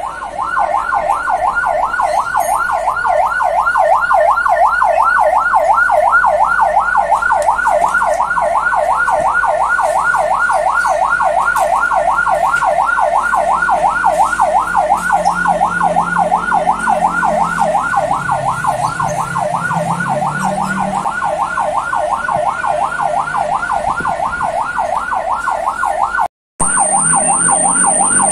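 Electronic ambulance siren sounding a fast yelp, its pitch sweeping up and down about four times a second. It cuts out for a moment near the end.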